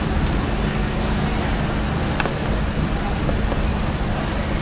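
Steady background rumble with a constant low hum, and one faint click about two seconds in.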